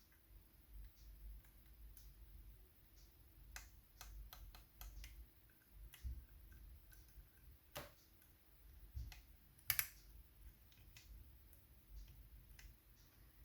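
Faint, scattered clicks and taps of lock picking tools working the levers inside a Chubb 3G107 seven-lever lock, with a couple of sharper clicks about eight and ten seconds in.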